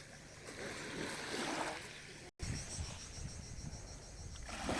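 Sea waves washing ashore, with wind buffeting the microphone. The sound drops out for an instant at a cut about two seconds in.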